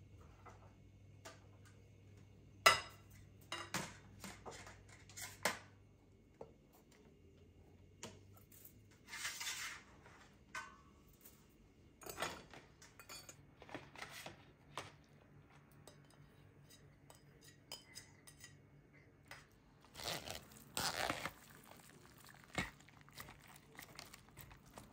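Kitchen prep sounds: scattered clinks and knocks of dishes and utensils, the loudest a sharp knock about three seconds in, with a few brief rustling noises.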